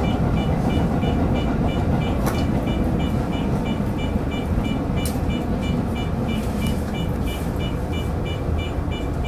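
Electric commuter train running along the track, heard from inside the driver's cab: a steady rumble of wheels on rail, with two sharp clicks about two and five seconds in.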